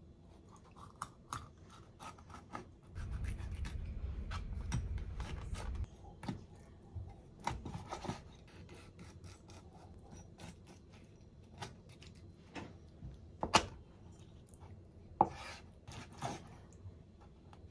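Scraping and rubbing with scattered sharp clicks and knocks, and a low rumble for about three seconds a few seconds in.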